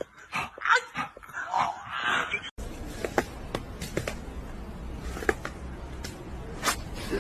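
A pet's short whining calls, then a few scattered light taps and clicks over a low hum.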